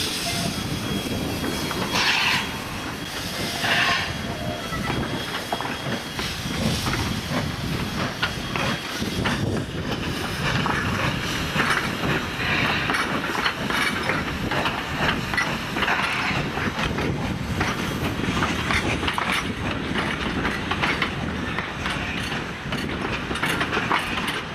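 Steam locomotive W934 working a passenger train past at low speed: the train rumbles and clatters, steam hisses, and two louder bursts of hiss come about two and four seconds in.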